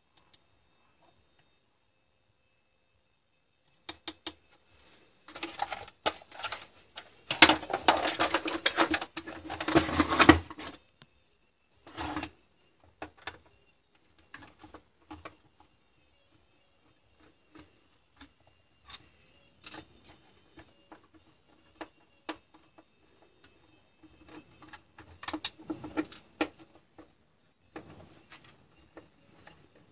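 A plastic cordless-drill battery pack and tools being handled on a wooden workbench. After a few quiet seconds there is a dense stretch of rattling and clattering, then scattered clicks and knocks as the pack is turned over and worked on by hand.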